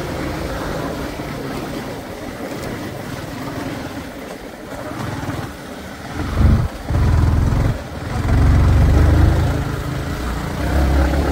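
A motor vehicle's engine running while on the move, with a heavy low rumble that grows louder from about halfway through.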